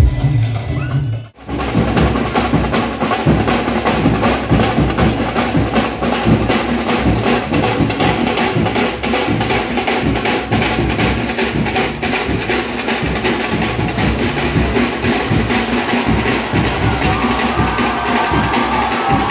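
Electronic dance music cuts off abruptly about a second in, then fast, dense drumming from a percussion ensemble takes over. Wavering higher tones join the drumming near the end.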